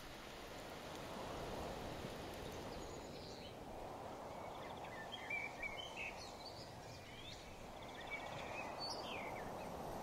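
Rural outdoor ambience: a steady rushing background noise, with small birds chirping and calling now and then from about three seconds in.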